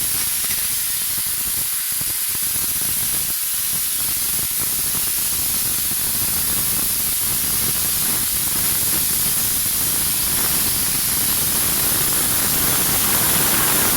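Steam gun of an LPG-fired mobile steam car washing machine jetting dry steam in a steady hiss, getting a little louder near the end.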